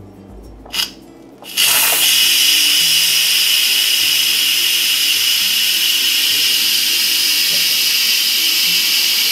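Instant Pot Duo 60's steam release valve opened for a quick pressure release at the end of the cooking cycle: a small click, then about a second and a half in a sudden loud, steady hiss of pressurized steam venting from the lid.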